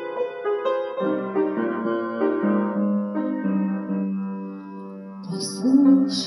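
Piano accompaniment playing a slow, gentle introduction: single melody notes over held chords. Near the end a woman's voice comes in close on the microphone with an audible breath as she starts to sing.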